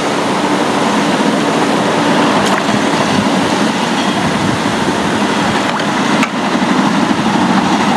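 A steady rushing noise with no pitch to it, with a few faint clicks, one about two and a half seconds in and two more near the end.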